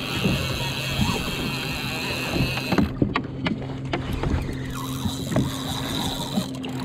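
Yamaha WaveRunner jet ski engine idling with a steady low hum, over a noisy haze of water and wind. A few sharp clicks come about three seconds in as the rod and spinning reel are handled during the fight with a fish.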